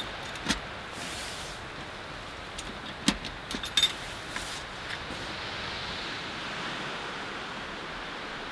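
Metal clinks from a small sheet-metal wood stove as its door is closed and latched: one light clink about half a second in, then a sharper clank about three seconds in followed by two quick clicks. A steady hiss sits underneath.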